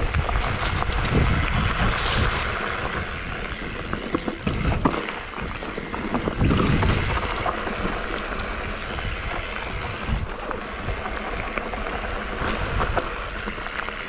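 Mountain bike running fast over rough trail: steady wind rush on the microphone, with tyre noise and many knocks and rattles as the bike hits bumps.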